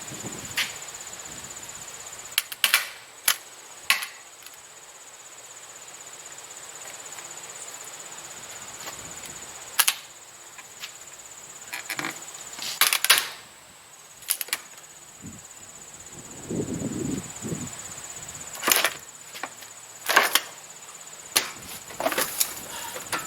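Scattered sharp clicks and knocks, about a dozen, spread unevenly over a steady high-pitched insect trill, with a short low sound partway through.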